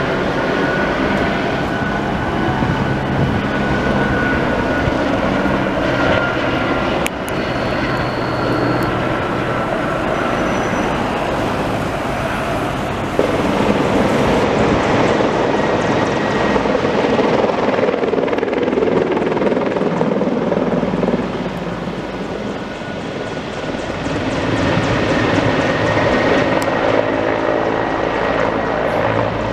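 Helicopters flying past: first a light single-engine helicopter, then, after an abrupt change about 13 seconds in, a Mil Mi-24 attack helicopter's rotors and turbines running as it passes. The level dips for a few seconds past the middle of the second pass and comes back up.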